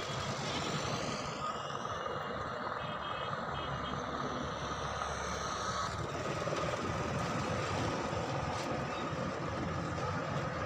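Steady engine noise with a constant whine running through it, without change.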